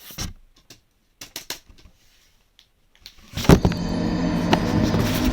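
A few light clicks and rustles of plastic Lego bricks being handled, then about three and a half seconds in a loud, steady noise with a low hum starts suddenly and carries on.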